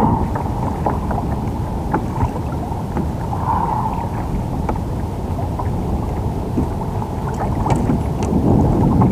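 Wind buffeting the microphone over choppy water lapping against a fishing kayak's hull, with scattered small clicks and splashes.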